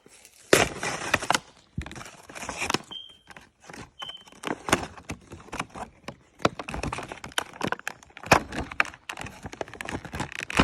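Toy packaging being torn and pried open by hand: a run of crackling, ripping and sharp snaps of cardboard and plastic.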